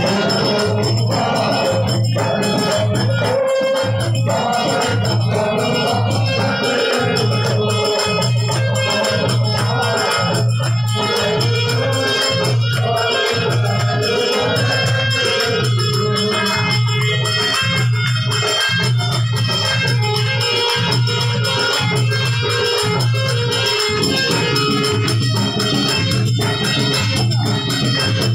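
Live Hindu devotional bhajan music amplified through microphones: a man singing over a harmonium, with rattling hand percussion and a steady low beat that drops away near the end.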